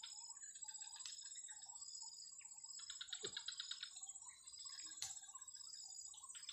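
Faint evening chorus of calling insects: a steady high-pitched whine, with pulsed trills that repeat every couple of seconds and short chirping calls beneath. A soft click about a second in and a sharper one about five seconds in.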